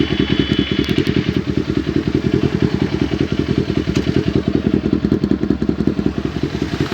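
Kawasaki Ninja 400's parallel-twin engine idling steadily, its exhaust pulsing evenly at a constant pitch.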